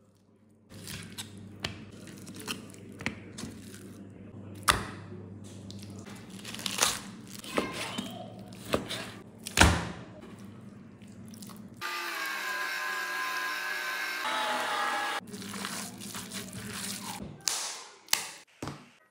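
Food-preparation handling sounds: knife cuts and taps on a plastic cutting board and raw meat being handled, with a series of sharp knocks, the loudest just under five and just under ten seconds in. From about twelve to fifteen seconds in, a steady sound of several pitched tones takes over before the knocks return.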